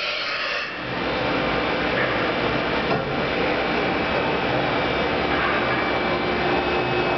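Viper VMC-950 CNC vertical machining center running, a steady mechanical hum and whir with a faint high whine held throughout.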